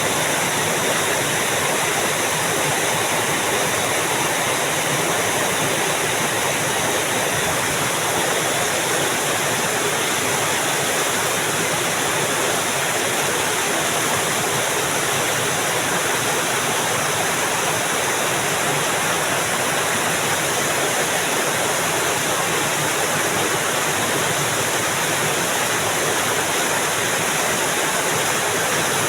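Steady, unbroken rush of flowing stream water.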